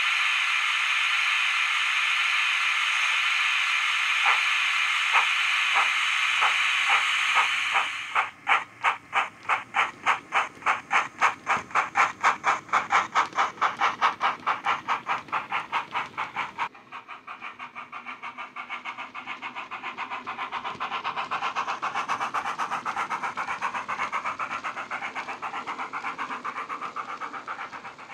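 Steam-locomotive sound from a DCC sound decoder (Howes LSWR Adams O2 sound on a LokSound 5) played through the model's bass-enhanced speaker. A steady steam hiss is joined by a few slow chuffs that quicken, then regular exhaust beats about three to four a second with hiss between them. About two-thirds of the way through the hiss stops abruptly and the chuffs continue softer and faster as the engine pulls away.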